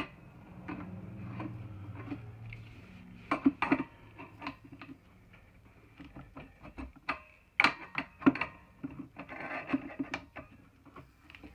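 Metal clicks and scraping of a wrench turning a screw extractor to back a broken coupler's threaded stub out of an air compressor manifold, with several sharp clicks, the loudest about three and a half and eight seconds in.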